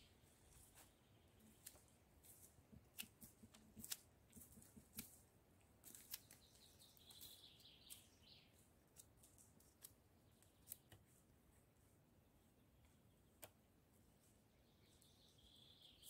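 Near silence, with faint scattered sharp clicks from small hand work at a wooden table and a small bird's short trill, about seven seconds in and again near the end.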